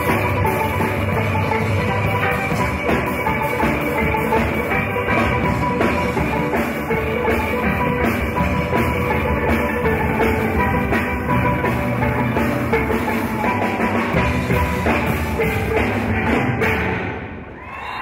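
Steel orchestra playing: steelpans over a drum kit keeping a steady beat. The music drops away sharply near the end.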